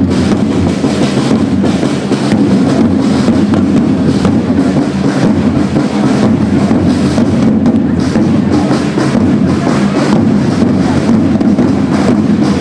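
A corps of marching side drums played together, a dense, continuous drumbeat that keeps going without a break.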